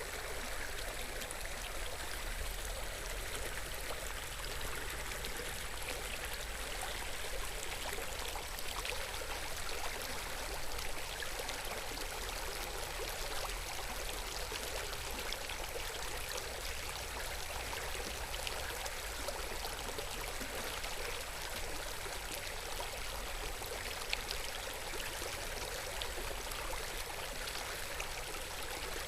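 River water flowing steadily, an even rushing babble.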